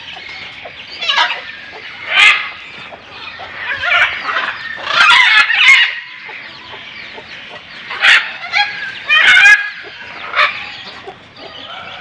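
Birds on a breeding farm calling in short squawks and clucks, the calls coming in bursts every second or two, busiest about four to six seconds in.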